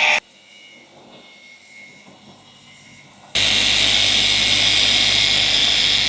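A loud, steady rushing machine noise from a workshop tool, starting suddenly about three seconds in after faint background hum and cutting off sharply near the end.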